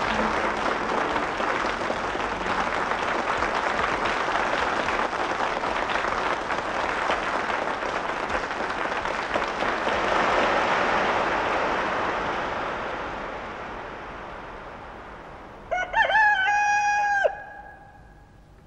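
A dense, even noise fades away over about fifteen seconds. Then a rooster crows once near the end, a single call of about a second and a half that rises quickly, holds and drops off at the end.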